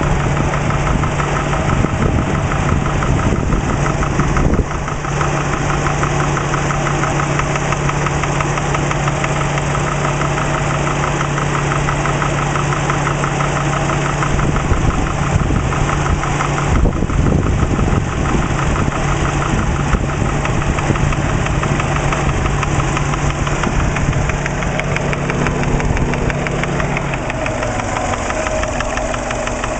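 Subaru EJ20 flat-four engine idling with a fast, even knocking tap. The owner finds the noise loudest at the top of the passenger-side cylinder head above cylinder one and has not traced its cause. The engine note shifts slightly near the end.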